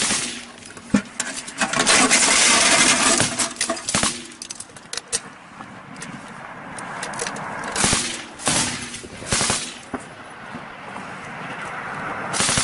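Machine-gun fire: a long sustained burst about two seconds in, followed by scattered single shots and short bursts.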